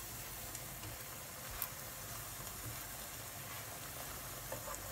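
Vegetable kebabs shallow-frying in hot oil in a pan, a faint steady sizzle, with one light click about a second and a half in.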